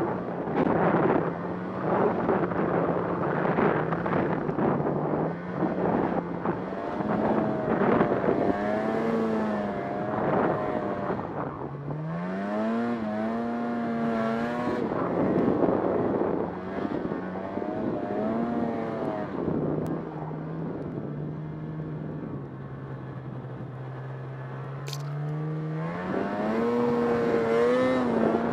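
Snowmobile engine running under changing throttle, its pitch repeatedly rising and falling as the rider accelerates and eases off, with wind rushing over the microphone. The engine settles to a lower, steady note a little past two-thirds through, then revs up again near the end.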